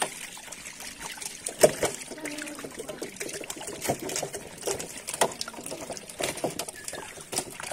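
Netted fish thrashing and splashing in shallow water while they are grabbed by hand, with water trickling and irregular sharp slaps; the loudest slaps come about one and a half seconds in, about five seconds in and near the end.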